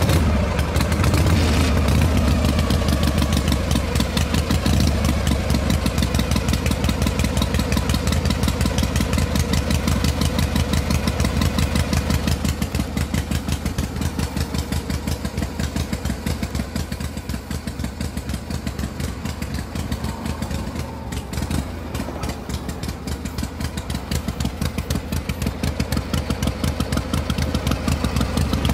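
Tractor engine sound effect that comes on abruptly and then runs at a steady rapid chug, like an idling engine. It eases off a little in the middle and picks up again towards the end.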